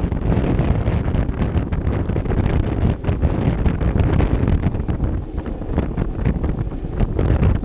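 Heavy wind buffeting on the microphone of a Vespa LXV 150 scooter cruising at speed, with the scooter's small single-cylinder engine and tyre noise running underneath in a steady rumble.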